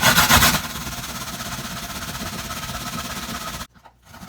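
Japanese white radish (daikon) being grated on a grater: a steady, rough rasping that stops abruptly about three and a half seconds in.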